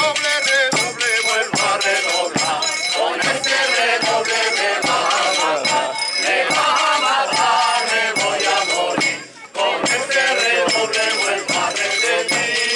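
A folk group singing a traditional Spanish song together, accompanied by a plucked lute, guitar and hand percussion beating a steady stroke about once a second. The singing breaks off briefly about nine seconds in, then resumes.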